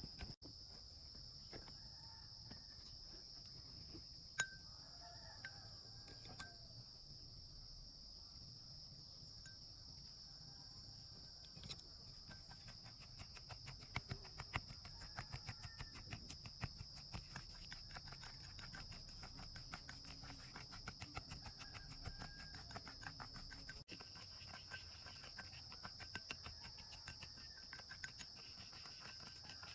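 Insects trilling in a steady, high, even drone, with faint bird calls. About halfway through, a run of quick, faint clicks sets in.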